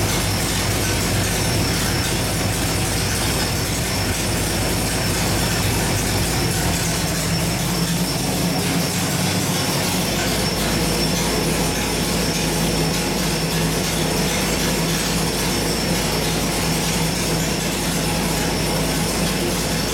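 Small-block Chevy 383 stroker V8 running steadily on the engine dyno, loud and even with no revving.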